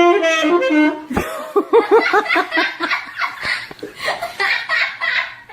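A person laughing hard in a quick run of pulsing bursts, starting about a second in. Before it, a held high tone cuts off just after the start.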